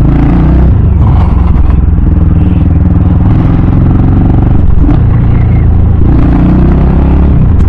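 CCM Maverick's 600cc single-cylinder engine and exhaust note under way, the note dipping and rising with the throttle.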